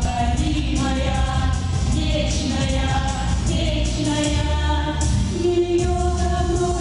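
Song: a singing voice holding long notes over instrumental accompaniment.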